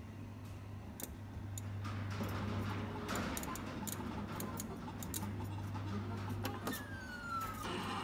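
Claw machine running: a steady low hum with scattered clicks and light rattles, and a short falling electronic tone about seven seconds in.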